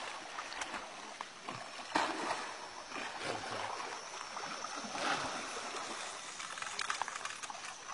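Water splashing and sloshing as a hooked arapaima thrashes at the surface, with a few sharper splashes standing out about two and five seconds in.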